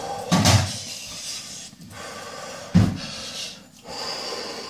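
A man breathing hard and fast through his open mouth, hissing breaths in and out, to ease the burn of a chili on his tongue. Two louder, sharper blasts of breath come about half a second in and just before three seconds.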